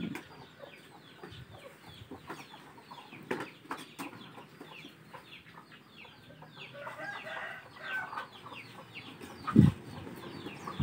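Chickens clucking, with quick short high calls running throughout and a louder patch of calling toward the middle; a single thump about nine and a half seconds in.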